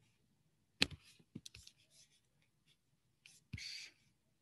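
Faint scattered clicks and small ticks, the sharpest about a second in, with a short soft hiss a little before the end.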